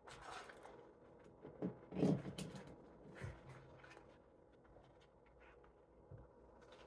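Close eating and food-handling sounds: a few short rustles and bumps, the loudest about two seconds in.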